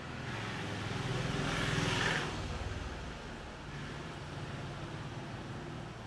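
A road vehicle passing by: a rushing noise that swells to a peak about two seconds in and then fades, over a steady low hum.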